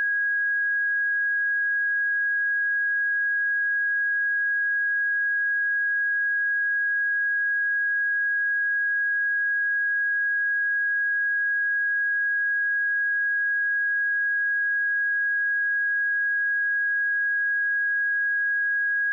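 Pure 1648 Hz sine-wave test tone, one steady high-pitched note held at constant level.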